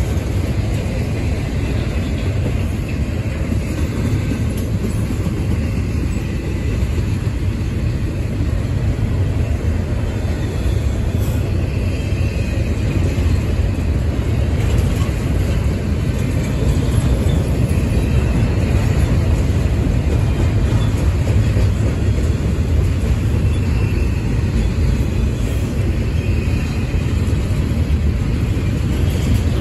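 Norfolk Southern double-stack intermodal train rolling past, its container well cars making a steady, loud rumble and clatter of wheels on rails.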